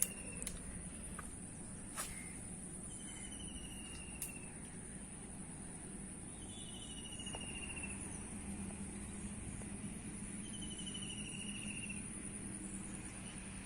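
Steady high-pitched insect drone, with a short falling, pulsed trill repeating every three to four seconds. A few sharp clicks come in the first four seconds.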